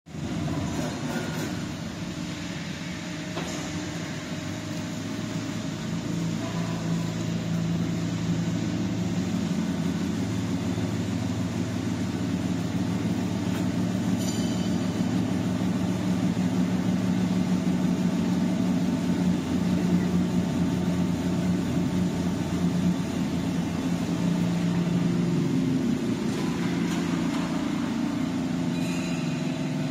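A stainless-steel continuous fryer running on a test, its electric conveyor motors and worm gearboxes giving a steady machine hum with a few faint clicks.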